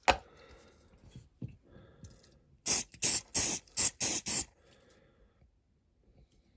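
Glue activator spray: six quick hissing spray bursts in about two seconds, misted onto freshly glued joints to harden the superglue.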